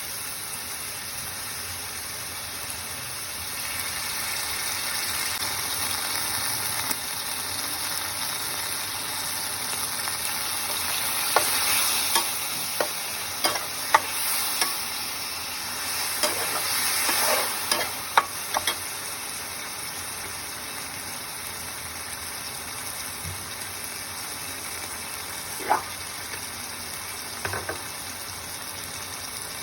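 Food sizzling steadily as it is stir-fried in a pan, with a utensil knocking sharply against the pan in a quick run about halfway through and twice more near the end.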